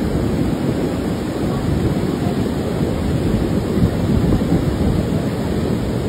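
Muddy floodwater rushing in a torrent down a concrete channel: a loud, steady, deep rush of churning water.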